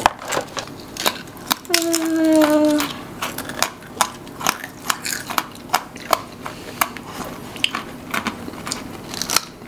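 Crunchy Pepero biscuit sticks, almond and choco-cookie, being bitten and chewed close to the microphone: an irregular run of sharp crunches, one or two a second.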